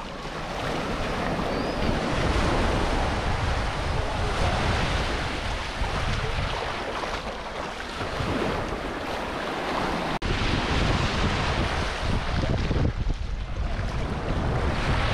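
Sea waves and surf with wind buffeting the microphone, a steady rushing noise.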